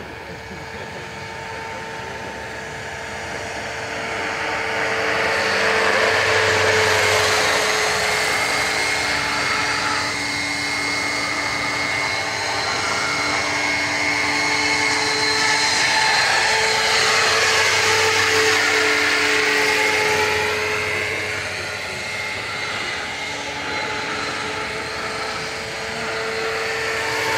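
Roban HH-60 Jayhawk 600-size electric RC helicopter in flight: the steady whine of its custom Scorpion electric motor and drive over the rush of the rotor blades. It grows louder as it comes closer about five seconds in, eases off later and swells again near the end.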